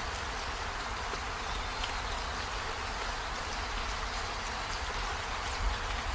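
Steady rain falling, an even hiss with scattered faint drop ticks and a low rumble, and a soft low thump near the end.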